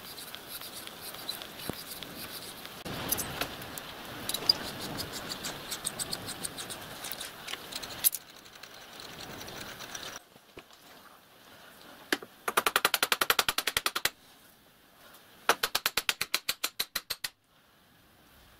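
A 1/2" x 32 thread being cut by hand with a tap in a cast iron cylinder block: scraping with light ticks for several seconds. After a quieter pause come two short runs of rapid metallic clicking, about ten a second.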